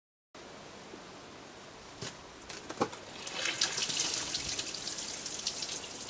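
Water squeezed out of wet sawdust and newspaper pulp squirting from the chamber of a homemade lever-operated briquette press, hissing and spattering; it starts about three seconds in, after a couple of knocks.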